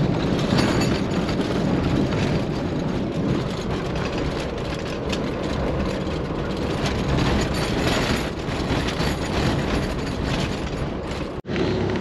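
A four-wheel drive on the move: steady road and engine rumble with rattling, which drops out suddenly near the end.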